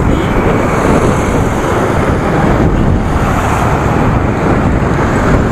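Steady wind noise buffeting the camera microphone while riding a bicycle along a road.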